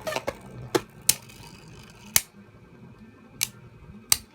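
Spinning Beyblade Burst tops clashing in a plastic stadium: sharp, irregular clicks about once a second, over a faint whirr.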